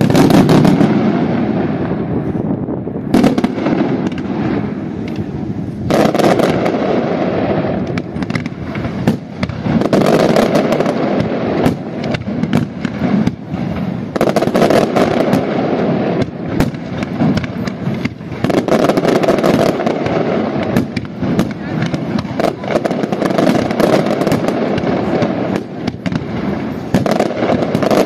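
Fireworks display: a dense, continuous barrage of bangs and crackling from many shells, swelling louder about every four seconds.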